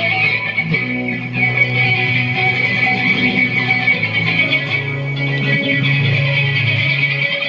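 Guitar-led music playing steadily through a PA system during a sound check.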